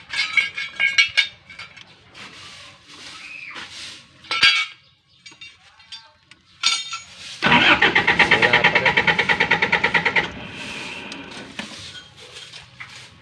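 Generator engine's electric starter cranking the engine rapidly for about three seconds, then stopping without the engine catching: the set will not start, and a missing supply from the control module is suspected. Some scattered clicks and knocks come before it.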